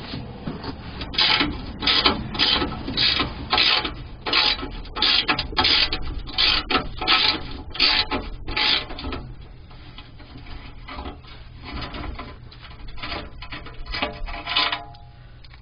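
Ratchet wrench ratcheting in quick repeated strokes, about two a second, while loosening skid plate bolts. The strokes stop about nine seconds in, leaving quieter scraping and a few ticks.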